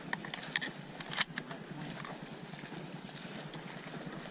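A few sharp clicks and rustles in the first second and a half as the camera is jostled among dry marsh reeds, then a faint steady outdoor hiss.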